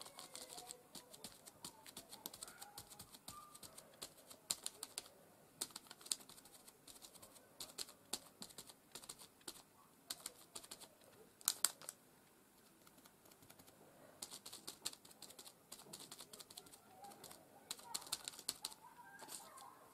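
Small sponge dabbing paint through a plastic rose stencil onto paper: a run of quick, irregular soft taps, with a sharper double tap a little past halfway.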